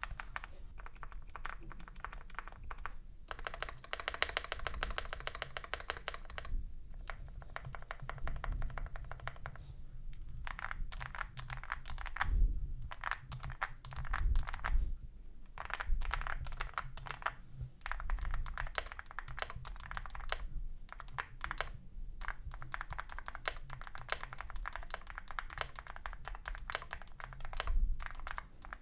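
Typing test on an Akko MOD007 V3 custom mechanical keyboard with hand-lubed switches, a polycarbonate plate and XDA-profile keycaps. Fast runs of key presses with short pauses every few seconds.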